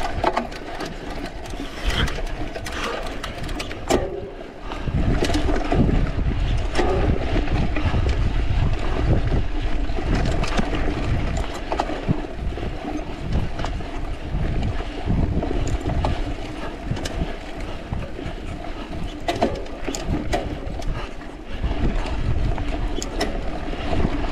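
Mountain bike ridden over a rough trail, recorded from on board: wind rumbling on the microphone, tyre noise and the frequent rattles and clicks of the bike over bumps.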